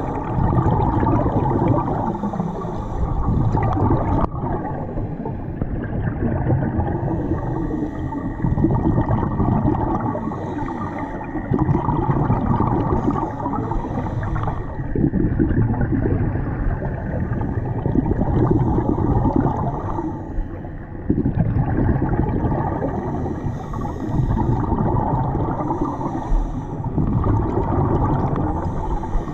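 Scuba regulator exhaust bubbles rumbling and gurgling underwater, swelling every few seconds as the divers breathe out.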